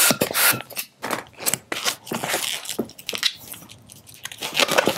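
Latex 260 twisting balloon being handled: irregular squeaks, rubbing and crackling of the inflated black balloon as its nozzle end is worked by fingers. The last hand-pump strokes come in the first half-second.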